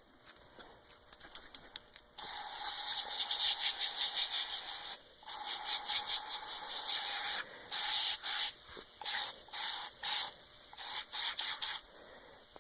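Aerosol can of Scrubbing Bubbles foaming cleaner spraying: one long hissing spray of about five seconds, then a string of short spurts. It is a second coat of foam going onto the nicotine-stained typewriter.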